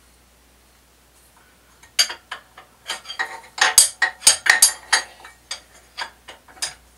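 A quick, irregular run of sharp metallic clinks and clanks, starting about two seconds in and lasting some four seconds: a wrench and steel parts knocking together as the drill press table's clamp nut is worked.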